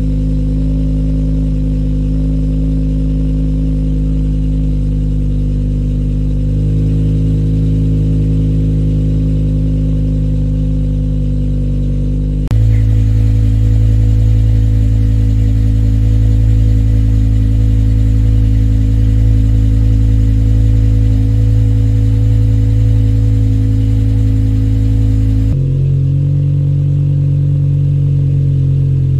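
BMW E60 M5's V10 idling steadily just over 1,000 rpm through a custom İskender exhaust after a cold start. From about 12 seconds in until near the end it is heard from inside the cabin, louder and heavier in the low tones, then again from the tailpipes.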